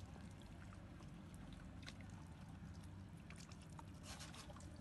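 Near silence: a faint steady low rumble with scattered soft clicks, and a short cluster of clicks about four seconds in.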